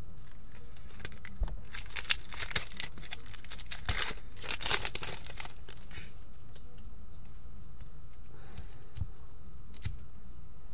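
Wrapper of an Upper Deck hockey card pack being torn open and crinkled, a run of crackling rustles from about one and a half to five and a half seconds in. A few soft clicks of cards being handled follow.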